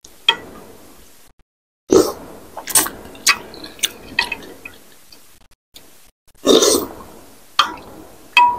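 Close-miked eating sounds: a metal spoon and fork clicking against a glass bowl of lontong sayur, with wet chewing and slurping between the clicks. A clink near the end rings briefly.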